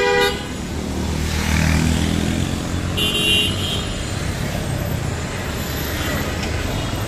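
Busy city road traffic with a steady din of engines and tyres. A vehicle horn toots briefly right at the start, an engine swells past about a second in, and a short high-pitched beep or horn sounds about three seconds in.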